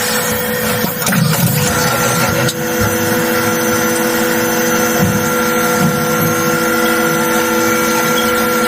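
CNC machining centre cutting a copper part: a steady spindle whine over a rough low cutting noise, with a brief change and a couple of knocks in the first few seconds.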